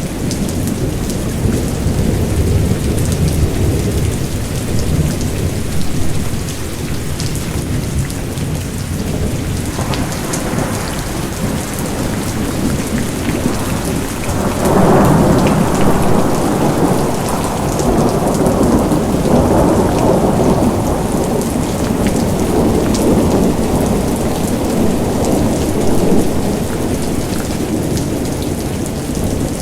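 Steady rain falling, with thunder rumbling low underneath. About halfway through, a louder roll of thunder swells in and rumbles on for several seconds before easing.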